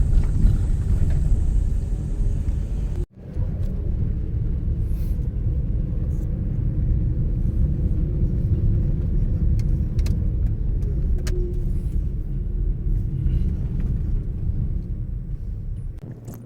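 Mitsubishi Pajero Mini kei 4x4 driving, a steady low engine and road rumble. It breaks off for an instant about three seconds in, then carries on.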